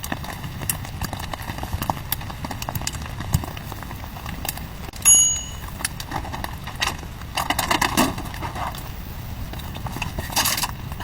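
Irregular knocks and clicks, with a brief ringing ding about five seconds in.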